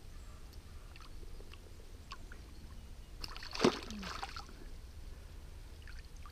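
Light clicks as a hooked chub is worked free inside a landing net in the water, then a brief splash about three and a half seconds in as the fish and net move in the river.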